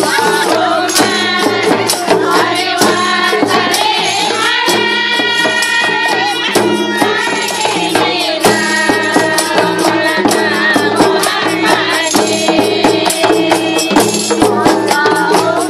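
A women's group sings together to a steady beat of hand-struck frame drums, a mallet-struck frame drum and jingling tambourines.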